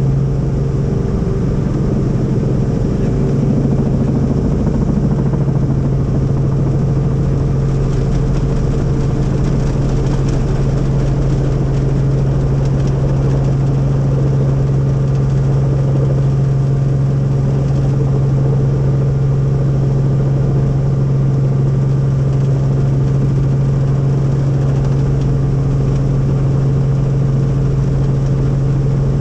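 Helicopter running with a loud, steady drone of engine and rotor noise, holding a constant low tone without change.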